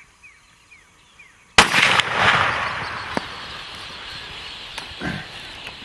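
A single loud handgun shot at a Cape buffalo about a second and a half in, followed by a long rushing noise that slowly fades as the herd bolts, with a few faint bird chirps before the shot.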